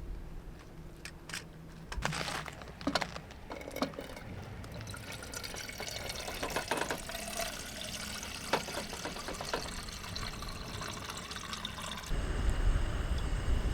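A few clicks and knocks, then several seconds of steady pouring water. Near the end the sound changes abruptly to a low rumble.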